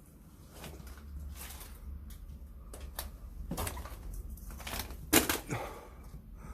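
Irregular crunching, clicking and knocking of loose debris underfoot and being disturbed in a ruined building, getting busier partway through, with the sharpest crack about five seconds in.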